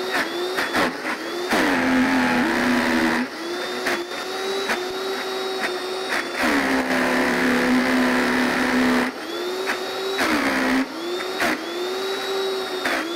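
Vitamix A3500 blender motor running hard on the frozen-dessert program, churning a thick load of frozen fruit with the tamper pressed in. Its whine drops in pitch and turns heavier twice for a couple of seconds each, then climbs back. This is the normal sound of the blender working hard, not of a fault.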